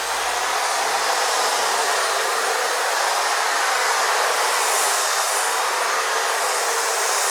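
Electric hedge trimmer running steadily, an even motor-and-blade noise with no breaks.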